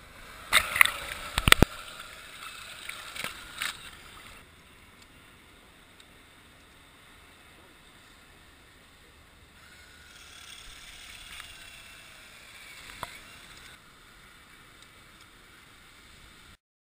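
Seawater sloshing and splashing in shallow surf, with several loud sharp knocks in the first two seconds and smaller splashes until about four seconds in, then mostly faint sound.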